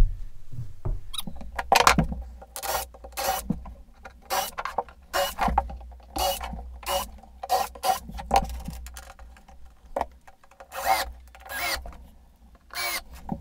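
Repeated short brushing strokes across new pine car-siding floorboards, about one or two a second and unevenly spaced, a dry rubbing scrape on the wood.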